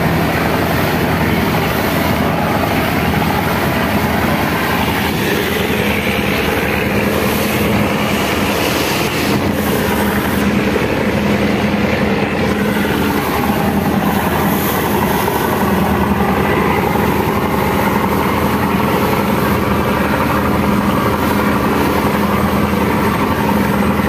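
Steady drone of a passenger river launch's engine under way, mixed with the loud rush of churning wake and waves along the hull.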